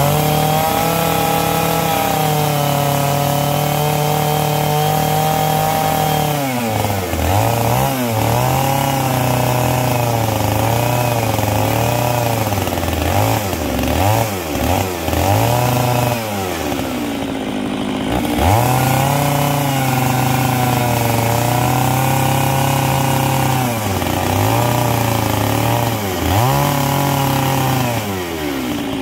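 Stihl 660 chainsaw's big two-stroke engine running at high revs. It holds steady for several seconds, then the throttle is repeatedly eased off and opened again, the pitch dropping and climbing back many times, before the revs fall away at the end.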